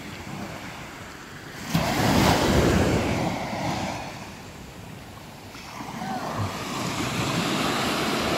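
Sea waves washing up on the beach: one surges in suddenly about two seconds in and drains away, and another builds toward the end, with wind buffeting the microphone.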